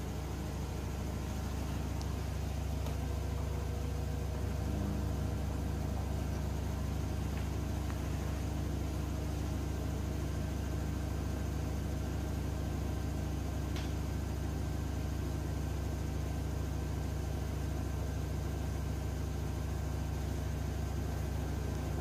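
Samsung WW10H9600EW front-loading washing machine in its high-speed spin, giving a steady motor hum and drum whir with faint whining tones running through it.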